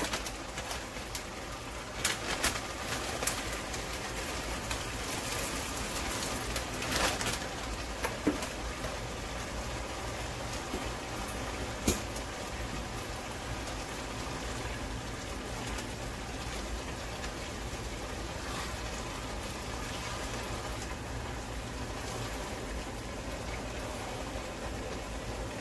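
Thick meat filling bubbling steadily in a pan on high heat as its sauce cooks down. Scattered clicks and rustles in the first several seconds as frozen peas are tipped in from a plastic bag.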